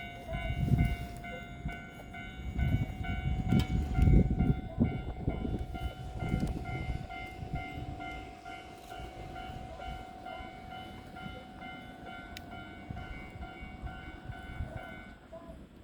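A 383-series Shinano limited express train running into the station: low rumble and heavy wheel thumps over rail joints that die away after about seven seconds, over a steady whine. A repeating electronic warning tone pulses through most of the clip and stops shortly before the end.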